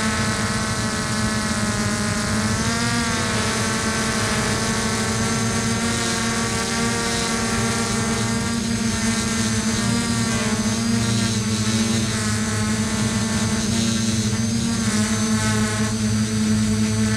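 Motor and propeller of a radio-controlled model aircraft, heard close up from on board: a steady buzzing whine whose pitch rises and falls several times as the throttle changes.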